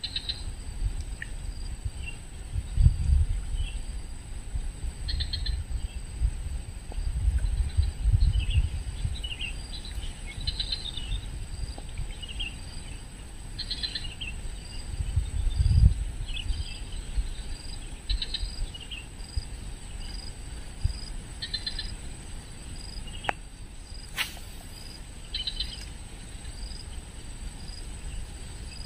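Outdoor ambience by the water: a steady high-pitched insect drone with many short chirping calls scattered through it. Several low rumbles come and go, typical of wind or handling on the microphone.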